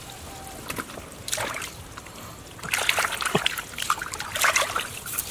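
Hands splashing and sloshing in shallow muddy water, groping through the mud for catfish. The splashing comes in short, irregular strokes that grow busier after about the middle.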